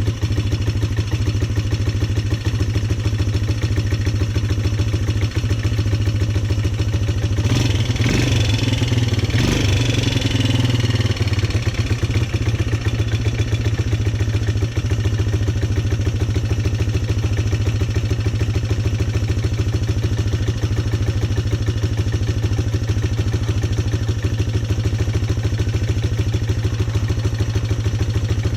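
Polaris Sportsman 300 ATV's single-cylinder four-stroke engine idling steadily after a tune-up with a fresh spark plug, running smoothly. About eight seconds in it is revved briefly and settles back to idle.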